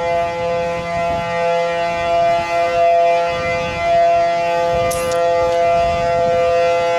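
Outdoor civil defense siren sounding a tsunami warning, holding one steady, loud tone with strong overtones.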